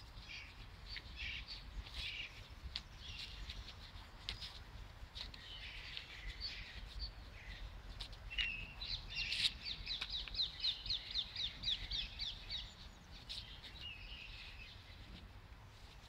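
Small birds calling and singing, with a fast run of repeated high notes, about four a second, lasting a few seconds past the middle.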